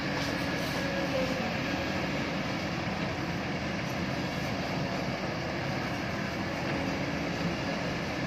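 Heavy diesel machinery running steadily: a tracked excavator working beside dump trucks, heard as a continuous engine drone with no sudden knocks or bangs.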